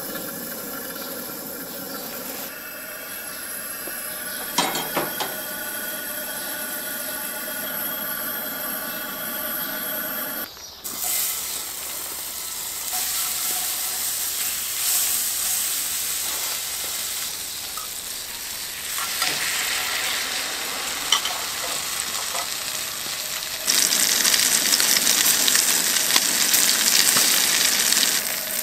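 Gas camp-stove burner running with a steady hiss and faint whine, then, from about ten seconds in, butter sizzling in a hot frying pan. The sizzling grows louder near the end as a ham-and-cheese sandwich is laid into the melted butter.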